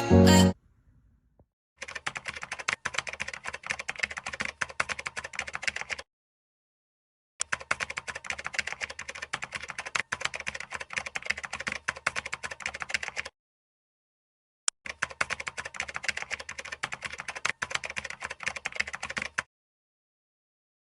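Rapid keyboard-like typing clicks in three runs of about four to six seconds each, with sudden silent gaps between them.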